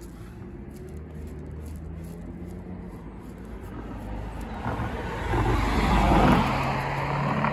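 A motor vehicle passing by: a low engine hum and rushing road noise grow louder, peaking about six seconds in, then ease off slightly.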